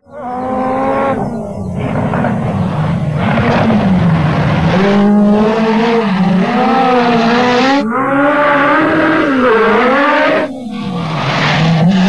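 Peugeot 205 Turbo 16 rally car engine at full throttle on a loose gravel climb, its pitch rising and falling as it revs through the gears. Three times the sound breaks off briefly as the throttle is lifted for a shift or a corner.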